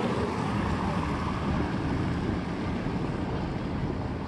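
Steady outdoor rushing noise, with wind buffeting the microphone.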